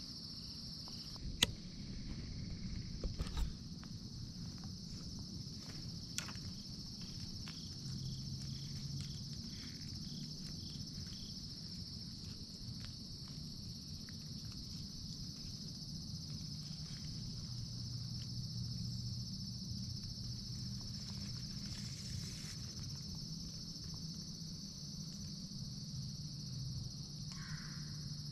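Steady, high-pitched chorus of insects chirring in the woods. A few sharp clicks break through about a second and three seconds in.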